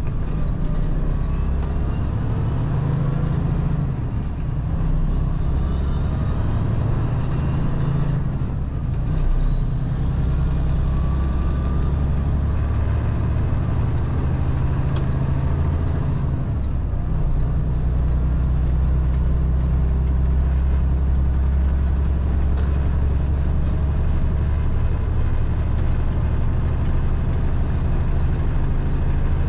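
Semi-truck's diesel engine and road noise while driving: a steady low drone, with faint whines that rise and fall in pitch over it.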